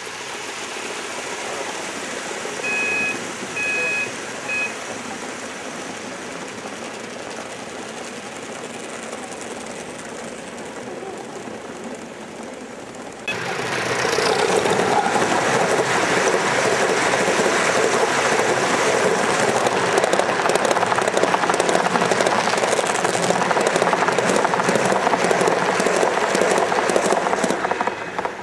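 A Gauge 1 model train of 23 coaches rolling along the track: a steady rumble of wheels on rail, with three short high tones a few seconds in. About thirteen seconds in it becomes much louder as the train runs close by, a dense clatter of wheels over the track that cuts off suddenly near the end.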